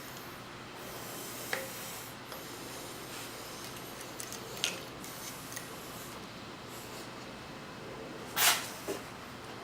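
Hand tools at work on an engine's timing belt tensioner: a few light metal clicks, then a short louder scrape about 8.5 seconds in and a click just after, over a steady low hiss.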